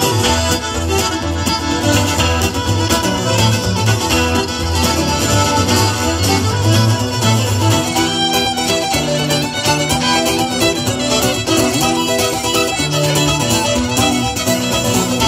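Live Irish traditional music: fiddle and button accordion playing a tune together over acoustic guitar backing, as heard through a PA.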